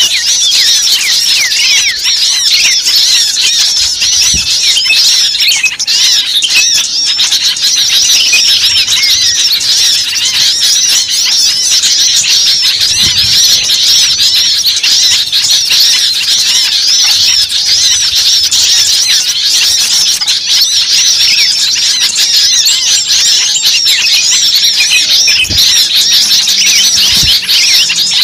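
A dense flock of small birds chirping and chattering all at once in a steady, loud chorus of many overlapping high calls.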